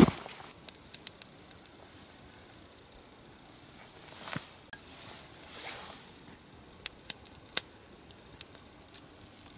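Small campfire crackling, with irregular sharp pops and snaps over a faint hiss, and a couple of brief softer rustles from someone moving around the fire.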